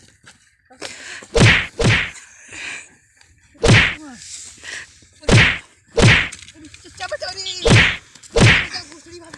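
Fight-scene punch sound effects: about seven loud, sharp whacks in quick, uneven succession as blows land, with faint cries between them.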